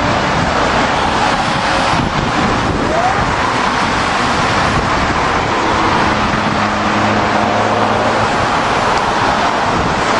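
Fire trucks driving past in traffic: a loud, steady rush of engine and road noise, with faint siren tones under it and a short rising siren whoop about three seconds in.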